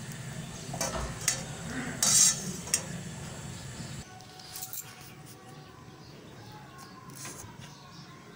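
Metal kitchen utensils clinking against a pan several times, the loudest clink about two seconds in, over a steady low hum. After about four seconds the sound drops to a quieter background with a few faint taps.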